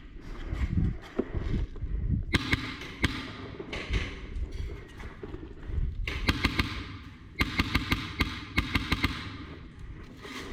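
Airsoft player on the move: dull footstep thuds and gear handling, with three short runs of rapid sharp clicks, the first about two seconds in and the last two close together in the second half.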